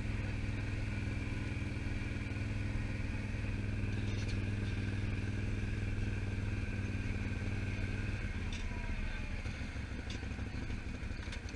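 ATV engine running at a steady pitch. The hum weakens about eight seconds in, with a few light clicks over it.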